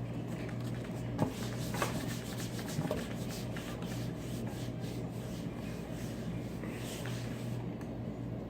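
Hands kneading and stretching store-bought slime mixed with activator, a run of rubbing, crackly squishes with a few sharper clicks early on, over a steady low hum.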